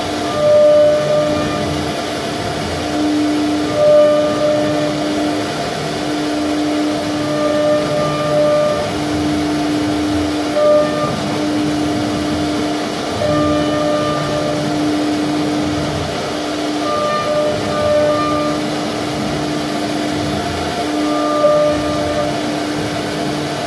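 CNC wood router carving a relief pattern into a wooden panel: a steady mechanical hum and cutting noise, with tones that strengthen and fade in stretches of a second or two as the bit moves along the carving path.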